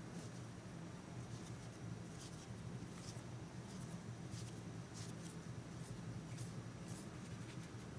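Fingers pressing and smoothing soft purple-potato cookie dough around a ball of sweet potato paste filling. The sound is a series of short, faint rubbing scrapes. A steady low hum sits underneath.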